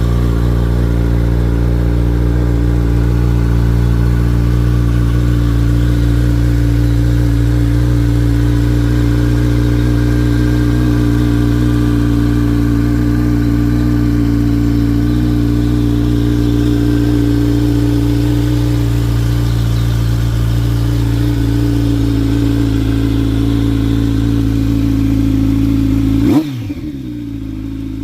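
Kawasaki Z900 inline-four engine idling steadily after a cold start. Near the end it gives a short rise and fall in pitch, and the sound drops abruptly in level.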